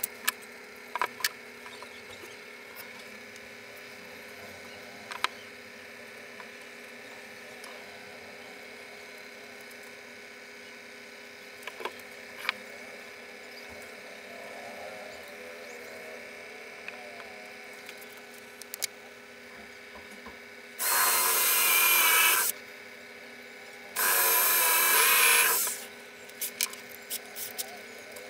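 Cordless drill running into wood in two runs of about two seconds each, a second or so apart near the end, with scattered light knocks of wooden pieces being handled before them.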